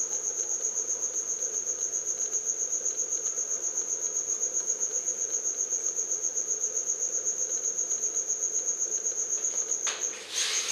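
A cricket trilling steadily on one high note in a fast, even pulse. Near the end the trill breaks off briefly under a short rustle.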